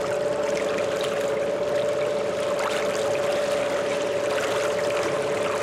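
Water rushing and splashing along the hull of a catamaran under way, over a steady hum.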